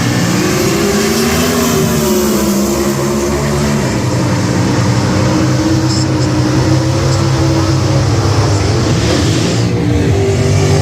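Drag-racing car engines running loudly, their pitch rising and falling slowly as they rev and settle.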